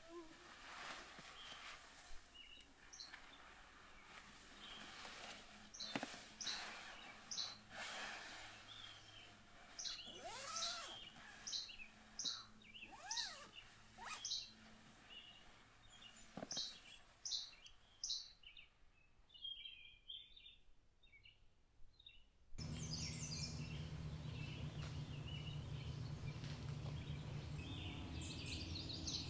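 Wild birds calling: many short, high chirps repeated every second or so, with a few lower swooping calls between them. About twenty-two seconds in, the sound cuts abruptly to a louder, steady rush of noise with a low hum underneath, with more chirps over it.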